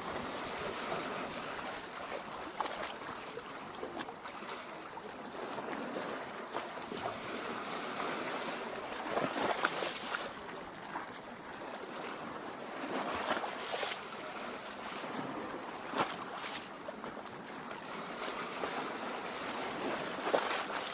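Lake water lapping at the shore: a steady wash with louder splashy swells every few seconds.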